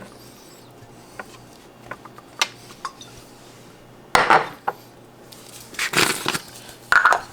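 Kitchen-prep handling sounds: small clicks and clinks of dishes and utensils while skewers of halloumi and mushroom are oiled, with a few louder, brief rustling sounds about four, six and seven seconds in.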